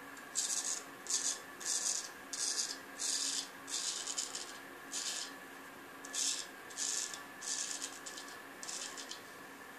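Early-1900s A.J. Jordan straight razor shaving lathered stubble on the neck: about a dozen short strokes of the blade cutting the beard, one every half second or so, with a short pause in the middle and fainter strokes near the end.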